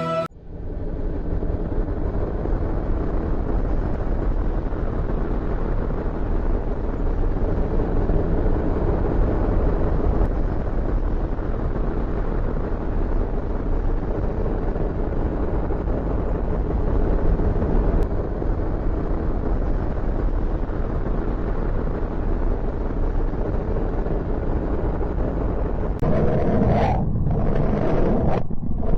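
Steady low rumble with a hiss, a space sound of the kind NASA releases as recordings and sonifications. Near the end it gives way to a few louder surges that break off and come back.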